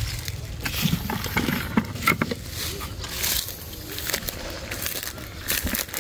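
Crinkling rustle of woven plastic fruit bags and brushing foliage, in irregular crackly bursts over a steady low rumble.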